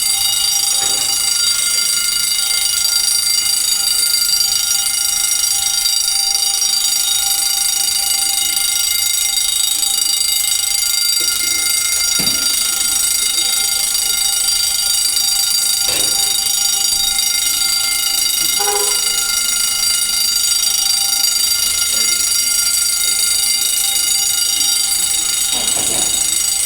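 Building fire alarm sounding continuously: a steady, high-pitched tone with overtones that does not let up. The alarm went off while fire hydrants were being flushed, which the tester suspects set it off. A few faint knocks can be heard beneath it.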